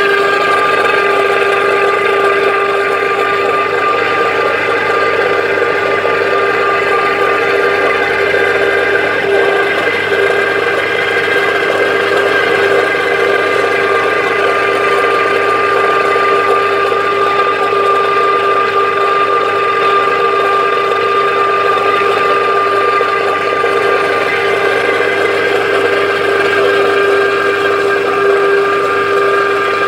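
Kapok oil mill machinery running steadily, a constant whine over a dense mechanical rush, while the seed oil is pressed and filtered.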